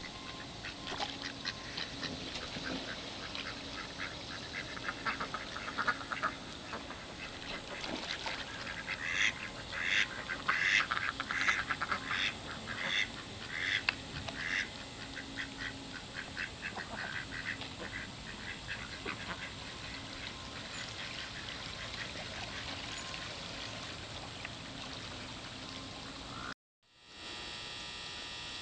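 Pet domestic ducks quacking over and over. A run of louder quacks comes in the middle, with quieter calls before and after.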